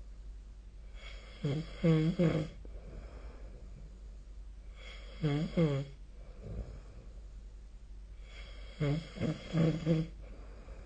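A sleeping person snoring: three snores about three and a half seconds apart, each a few short pulses with a buzzing pitch, over a low steady hum.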